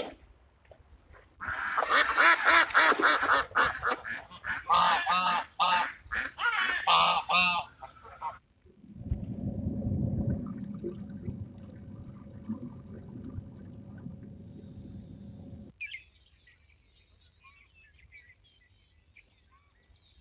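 A flock of geese honking, many loud overlapping calls for about six seconds. A low steady rumble follows, and faint high chirps come near the end.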